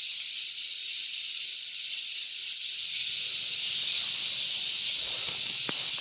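A steady high-pitched hiss that grows a little louder about halfway through.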